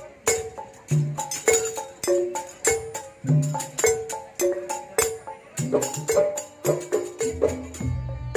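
Live traditional percussion ensemble playing pencak silat accompaniment: a fast run of sharp pitched strokes over deeper drum hits, with a low ringing gong-like tone starting near the end.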